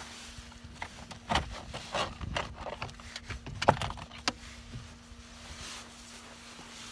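Small hand tools clicking and knocking as they are picked up and set down while someone searches for a fine Phillips screwdriver; about half a dozen sharp clicks over the first few seconds, with a faint steady hum underneath.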